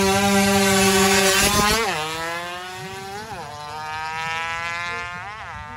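A 116cc underbone racing motorcycle accelerating flat out in a drag run. The engine holds a steady high rev at first, then shifts up three times: each shift is a sudden drop in pitch followed by a steady climb. The sound fades as the bike pulls away.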